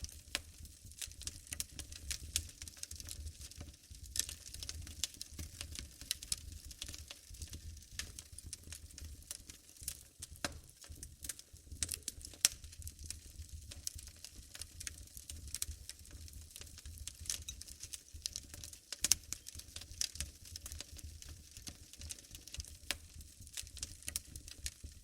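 Wood fire burning in a fireplace, crackling with many small irregular pops and a low steady rumble underneath. Two louder snaps come about halfway through and again a little later.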